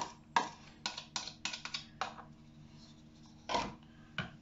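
Metal spoon scraping and tapping against plastic bowls while mayonnaise is spooned out, a quick series of small clicks in the first two seconds, then a louder knock about three and a half seconds in.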